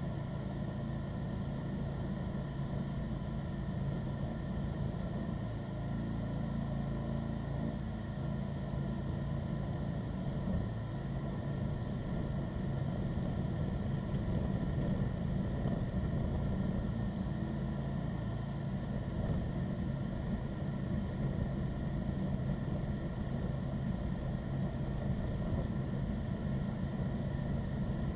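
John Deere lawn tractor engine running steadily, a constant hum, as the tractor pushes snow with its front blade.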